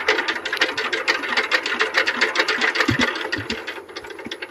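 Single-cylinder diesel engine of a two-wheel power tiller running with a fast, even knock, then fading and slowing near the end as it dies. The owners suspect it is not getting fuel properly, with water in the tank.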